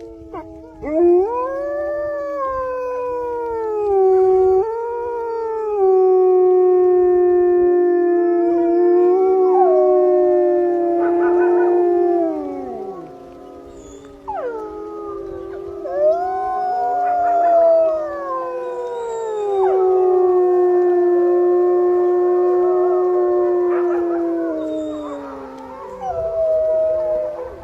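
A pack of wolves howling in chorus: several long, overlapping howls at different pitches, some rising and then sliding down, with a few short yipping calls mixed in.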